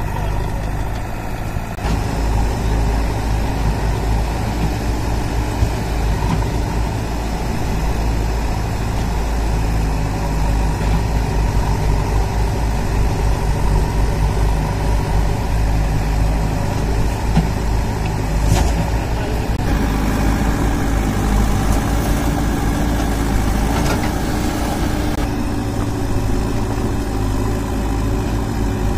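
Diesel engines of JCB 3DX backhoe loaders running with a steady low rumble. About two-thirds of the way in, the engine note changes as one loader works its backhoe arm.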